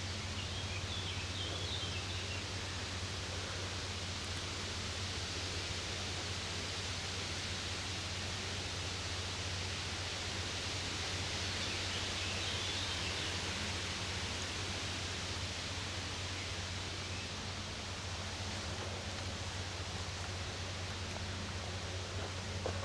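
Steady outdoor background noise: an even hiss with a low steady hum beneath. Faint high chirps come in near the start and again about halfway.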